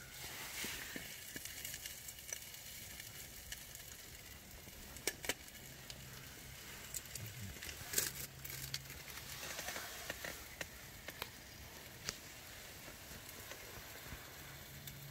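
Faint steady sizzling with scattered sharp ticks and crackles from a wood-burning tent stove and its flue pipe, where sticky resin is running down the hot pipe.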